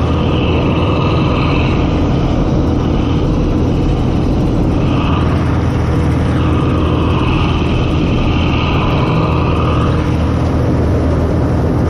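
CLAAS Mercator 50 combine harvester running steadily under load while harvesting wheat: engine and threshing machinery heard close up from the open operator's platform, with a higher whine that swells twice.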